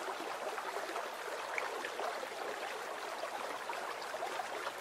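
Steady running water, with hands being washed in it.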